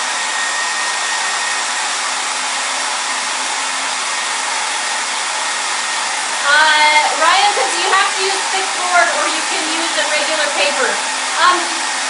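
Handheld hair dryer running steadily, blowing hot air onto crayons glued to a canvas to melt the wax. Voices start talking over it about halfway through.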